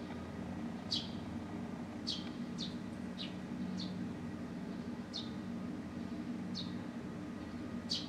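Eurasian tree sparrow chirping: short, sharp single chirps that drop in pitch, about one a second. A steady low hum runs underneath.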